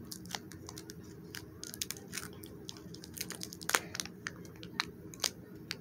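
A candy wrapper being picked at and unwrapped by hand: scattered sharp crinkles and small tearing crackles, the loudest a little before four seconds in.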